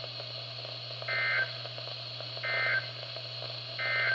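Three short bursts of NOAA Weather Radio SAME digital data, each a fraction of a second of rapid two-tone data noise, evenly spaced a little over a second apart: the end-of-message code that closes a severe thunderstorm warning. Heard through a weather radio receiver over a steady static hiss and low hum.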